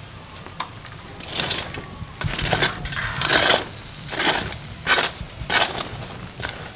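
A hinged stainless-steel wire grill basket scraping and rattling over the charcoal and the grill's metal frame as it is moved off the coals, in a string of short scrapes about one every half second to second.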